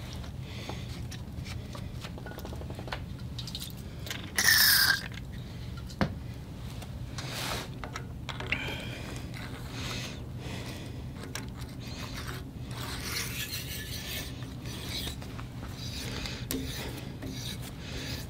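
Helicoil thread-repair tap being turned by hand in a tap wrench, cutting new threads in a metal hole: a steady scraping, rasping sound with small clicks. A brief loud squeal, falling in pitch, comes about four seconds in.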